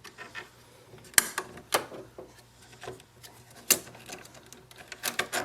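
Plastic clicks and light rubbing from an inkjet printer's print-head section being unlatched by hand. A few separate sharp clicks, the loudest about a second in and near four seconds, then a quick run of small clicks near the end.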